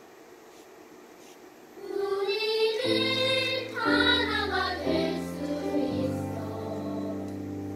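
Children's choir singing with piano accompaniment. After a short hush at the start, the voices come back in about two seconds in, over low piano notes.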